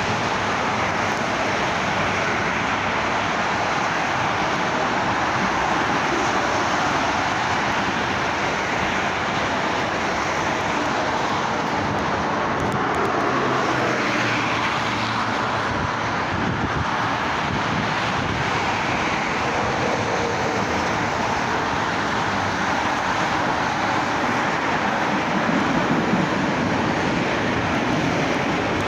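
Steady traffic noise from a multi-lane expressway, cars and trucks passing continuously. Near the end, the low rumble of a CTA 2600/3200-series rapid-transit train pulling into the station rises beneath it.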